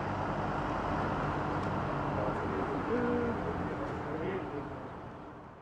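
Street ambience: a steady low hum under a wash of background noise, with a brief low hooting sound about three seconds in.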